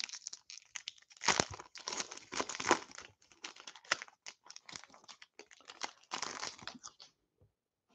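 Foil wrapper of a hockey card pack being torn open and crinkled as the cards are pulled out, an irregular crackling and rustling that stops about a second before the end.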